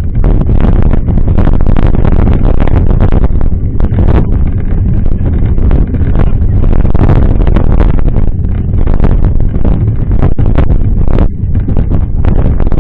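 Wind buffeting the microphone of a camera carried on a moving mountain bike, a heavy low rumble that rises and falls, with many irregular knocks and jolts from riding over rough ground.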